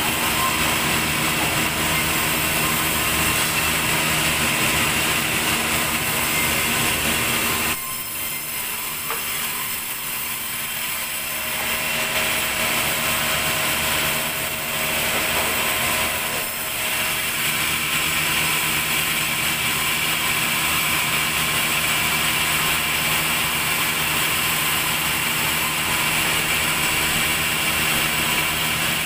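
Large vertical band saw in a sawmill running and cutting lengthwise through a log, a loud, steady machine noise with a few held tones. It drops off for a few seconds about eight seconds in, then picks up again.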